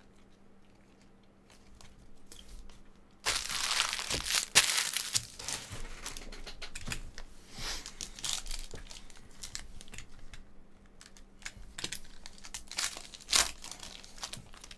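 Foil wrapper of a Panini Prizm basketball card pack crinkling and tearing as it is ripped open by hand. The first three seconds are fairly quiet, then a loud burst of crinkling comes, followed by steady rustling with sharp crackles and one more loud crackle near the end.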